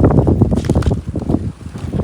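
Strong wind buffeting the microphone, a loud low rumble that surges and dips in gusts.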